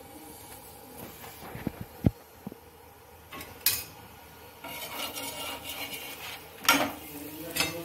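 Kitchen utensils knocking and scraping against a pan while a roti cooks on a tawa: a few sharp knocks about two seconds in, a scraping stretch, then a louder clatter with a short ring near the end.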